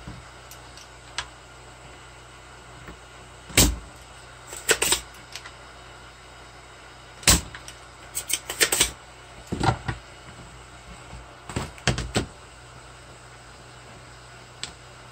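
A cassette deck being handled and worked on by hand: irregular sharp clicks and knocks of its parts, some single and some in quick clusters, over a steady low hum.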